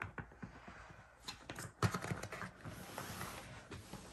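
Faint, scattered knocks and clicks as a hard-shell suitcase is handled and turned over by hand. The loudest knock comes just under two seconds in.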